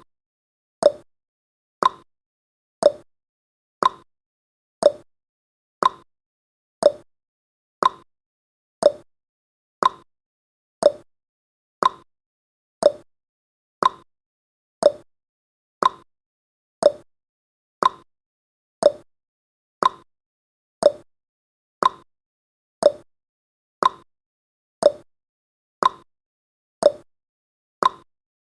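Countdown timer's tick sound effect: one short, sharp tick every second, evenly spaced.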